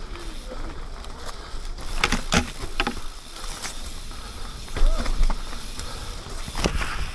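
Electric mountain bike riding down a wet, leaf-covered dirt trail: a steady noise of tyres rolling over mud and leaves, with the bike rattling and several sharp knocks over bumps, the loudest around two and five seconds in and again near the end.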